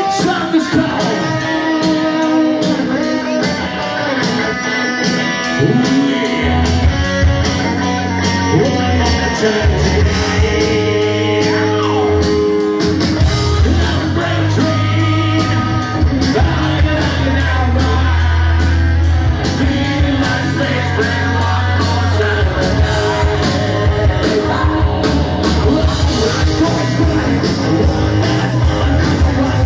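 Live hard-rock band playing loud: electric guitar lines over drums and cymbals, with bass guitar coming in about six seconds in and a singer's voice in places.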